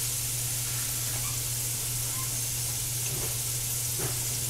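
Diced sweet potatoes frying in oil in a skillet, a steady sizzle, with a steady low hum beneath it.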